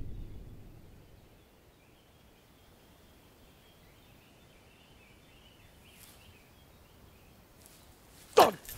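A deep boom fades out over the first second. It gives way to quiet garden ambience with faint bird chirps. Near the end comes one sharp sound that sweeps quickly down in pitch.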